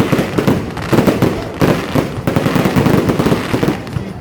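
Fireworks going off in rapid succession: a dense, continuous run of bangs and crackles, many per second.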